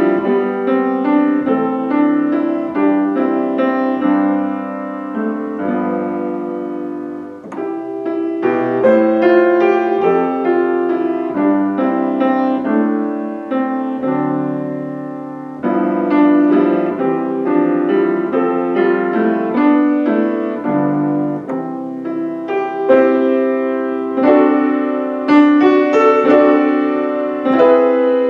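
Solo piano playing a slow prelude of chords and melody, with short pauses between phrases.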